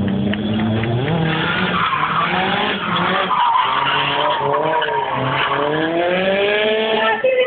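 Nissan Silvia S14 drifting: its engine revs up and down several times while the tyres squeal and skid through the slide.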